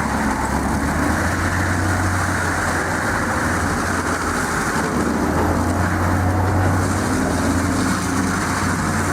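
Tracked forestry mulcher's big diesel engine running under load, a steady low drone with a rough noisy din over it from the mulching head working a stump.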